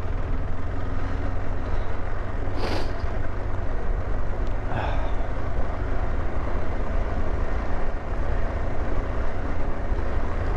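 KTM 390 Adventure's single-cylinder engine running steadily as the motorcycle is ridden along a muddy off-road trail, with a couple of brief sharper noises over it.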